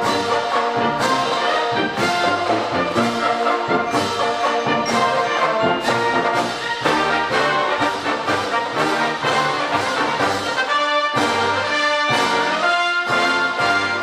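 A marching band playing: trumpets, trombones and sousaphones together in full brass sound over drums keeping a steady beat.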